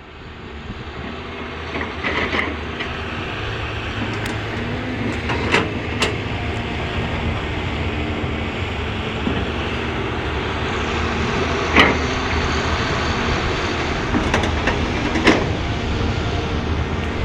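Diesel engine of a Caterpillar 320D hydraulic excavator running steadily, fading in over the first couple of seconds, with a handful of sharp knocks of rock and steel as it loads rocks into a dump truck.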